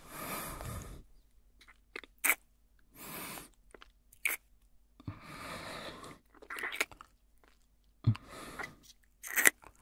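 Close-up kissing sounds: several short, wet lip smacks with breathy exhales between them.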